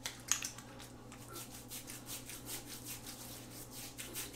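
Hands rubbing pre-shave cream into three days' stubble on the face, with quick rasping strokes several times a second.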